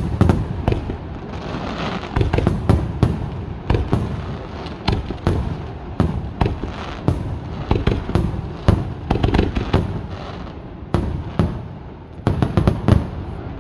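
Aerial firework shells of a Vaccalluzzo Fireworks display bursting in a rapid, continuous barrage of overlapping booms and bangs. There is a short lull near the end, then a tight cluster of bangs.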